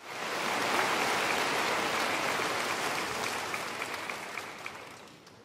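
Large crowd applauding, starting at full strength and gradually fading out. A faint rapid series of short high chirps runs through the middle.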